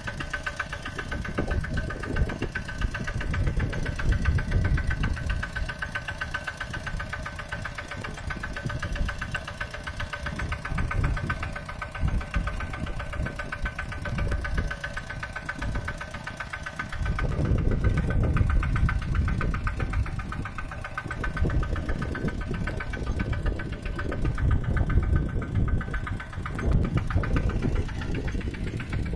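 Mini tractor engine running steadily with a fast, even chugging rumble and a steady high whine above it. The rumble grows louder for a few seconds about two-thirds of the way in.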